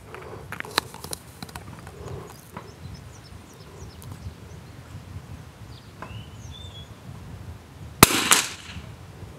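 A single .22 LR shot from a CZ BRNO Model 4 bolt-action rifle about eight seconds in: a sharp crack with a short ringing tail. Before it, only a few light clicks over steady outdoor background noise.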